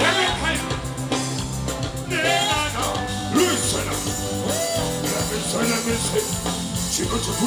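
Band music with a steady bass line and a singing voice over it, heard over the stage sound system at a sound check.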